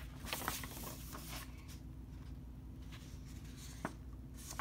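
Faint paper rustling and light clicks as a folded glossy paper leaflet is turned over and opened out. The handling is busiest in the first second and a half, with a couple of light ticks near the end.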